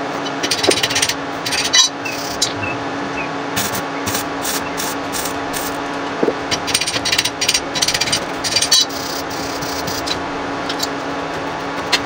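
Steel wire brush scrubbing metal in short scratchy bursts, several times, over a steady hum.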